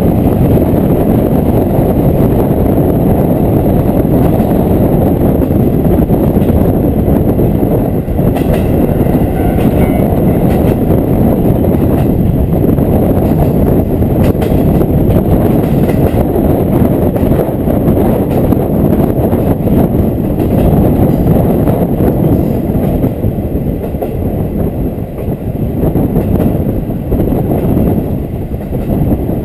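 Diesel railcar running along the line, heard from inside the car: a loud, steady low rumble of engine and wheels on the rails, with a few faint clicks about a third of the way in.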